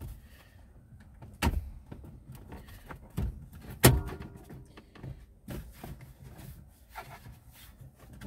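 Plastic lower steering-column cowling of a Smart Forfour being pulled down and off its clips: a series of sharp clicks and knocks, the loudest about four seconds in, with brief ringing after it.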